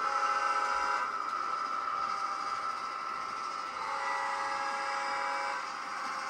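Model diesel locomotive's sound decoder (TCS WOW4 in an S scale SD40-2) sounding its multi-chime horn through the model's speaker: a blast of about a second at the start, then a longer blast of nearly two seconds a little past the middle, over a steady running drone.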